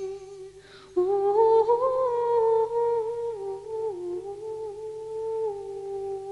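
Background score: a single eerie, humming-like melody line holding long notes and sliding slowly between them. It breaks off briefly and comes back abruptly about a second in.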